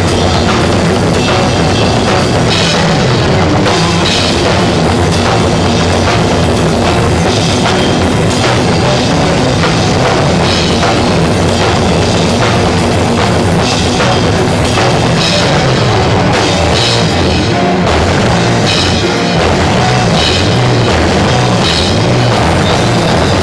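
A loud, heavily distorted live rock band playing, with the drum kit prominent, recorded on overdriven microphones so the sound is saturated and harsh.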